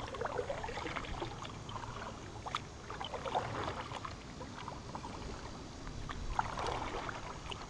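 Canoe being paddled with a double-bladed paddle: the blades dip and pull through the water on alternating sides, with a splash swelling up every few seconds.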